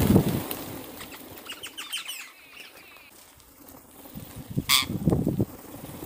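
A flock of rose-ringed parakeets takes off at once in a loud rush of wingbeats, then gives a short run of shrill, rapid squawks. Near the end there is another burst of wing flapping.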